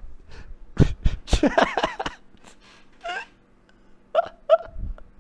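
A man's voice in a few short wordless bursts, the loudest a second or two in and briefer ones near the end, over a faint steady hum.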